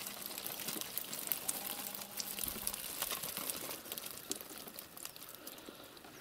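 Water streaming and dripping from a wet mesh fish trap into a metal bucket, with a patter of small minnows dropping in and the wet netting rustling; the dripping thins toward the end.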